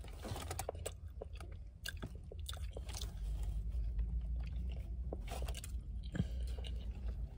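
Close-up mouth sounds of someone biting and chewing a soft jam doughnut, with many small sharp wet clicks. A steady low rumble of the car cabin sits underneath.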